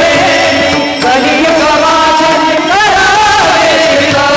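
Marathi devotional kirtan music: a sung melody of long, wavering held notes.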